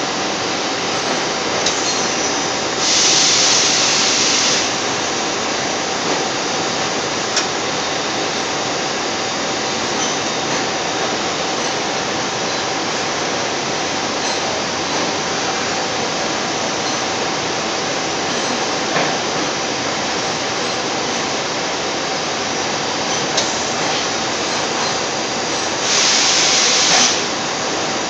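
Steady hissing background noise with a faint even hum, broken twice by a louder, higher hiss lasting a second or two, about three seconds in and again near the end.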